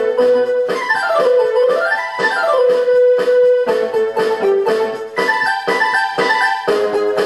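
Instrumental background music on a keyboard-like instrument: held notes over a regular beat, with a quick run of notes falling and then rising about a second in.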